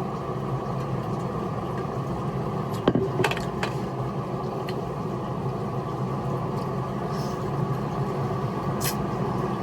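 Steady low mechanical hum, with a few light clicks about three seconds in and again near the end.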